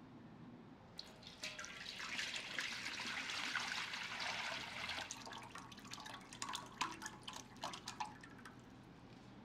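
Braising liquid poured from a steel bowl into a large steel wok, splashing. The pour starts about a second in, builds to a steady splashing, then thins out into scattered drips and small splashes.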